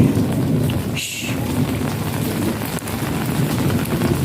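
Heavy rain pouring steadily, with thunder rumbling low underneath.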